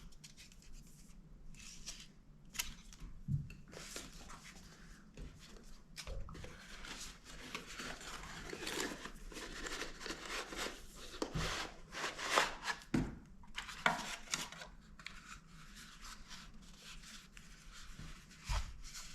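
A product box and its packaging being handled and rummaged through: irregular rustling and rubbing with a few light knocks, busiest in the middle.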